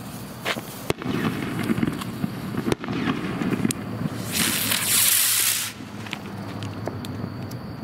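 A small spinning flying firework (a US 'Zip', the kind sold as a Moskito in Germany) hissing loudly for about a second and a half as it lifts off from the ground, about four seconds in. Scattered sharp cracks come before it.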